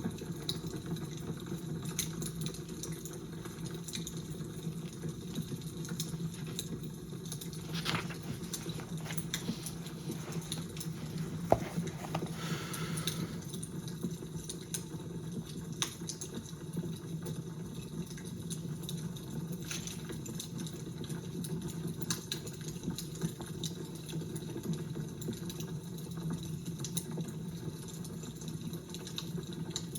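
A crackling fire: a steady low rush with scattered sharp pops and snaps, one louder pop about eleven seconds in.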